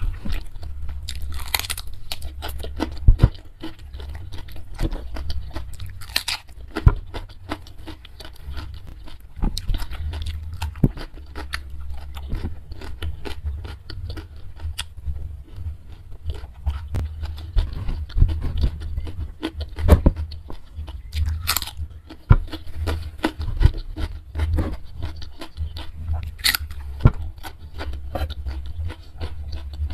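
Close-miked crunching and chewing of raw cucumber, with many sharp, irregular crunches of biting and chewing over a steady low hum.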